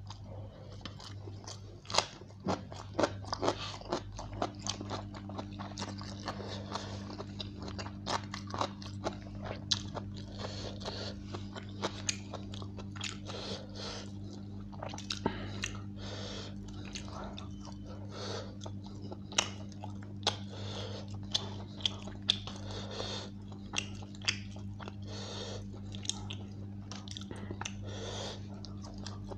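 A person eating chicken biryani by hand, close to the microphone: open-mouthed chewing with frequent sharp, wet mouth clicks and smacks. A steady low hum runs underneath from about four seconds in.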